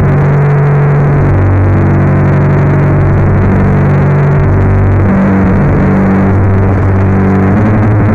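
Loud, distorted band music with drumming: a dense rattle over a low droning tone that steps to a new pitch every second or so.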